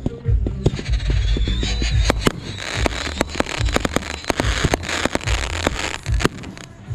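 Fireworks going off: a dense, irregular run of sharp bangs and crackling pops over low booms.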